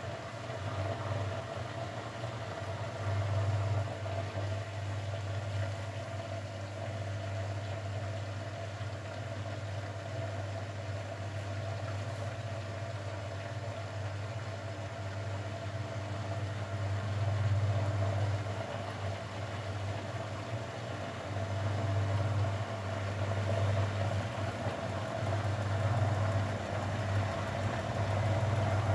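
Grundig Mini 14 washing machine running with a steady motor hum, swelling slightly louder at times.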